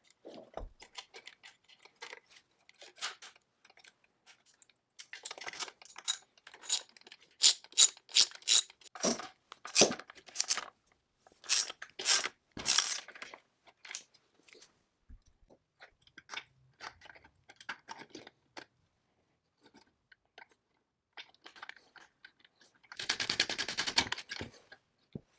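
Ratchet wrench clicking while bolts are tightened, a run of sharp clicks about twice a second, with lighter clinks of metal parts being handled around it. Near the end, a brief fast rattle.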